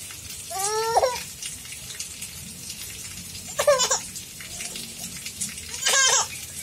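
A baby laughing in three short, high squeals that each fall in pitch: about half a second in, past the middle, and near the end.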